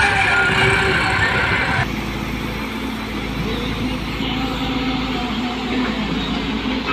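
Diesel machinery running at a sand pit. First a tractor engine pulling a trolley, then, with an abrupt change about two seconds in, a Hyundai 140W-7 wheeled excavator's engine running steadily as it swings a bucket of sand over the trolley and dumps it.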